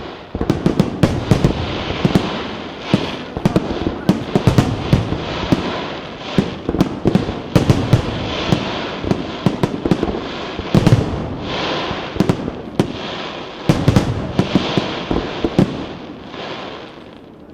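Fireworks display: a dense, rapid barrage of sharp bangs in quick succession over a continuous noisy wash, dying away just before the end.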